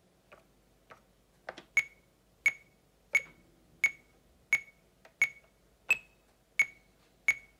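Electronic metronome clicking steadily on a Roland SP-404A sampler, about one and a half clicks a second, each a short, high beep-like tick. About five seconds in, one click is higher-pitched: the accented first beat of a four-beat count-in before recording. A few faint clicks come before the metronome starts.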